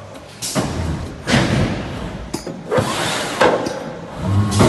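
Kolbus AutoBox heavy-duty corrugated box-making machine running, with a series of heavy thumps about once a second as it cycles through the board. A low machine hum comes in near the end.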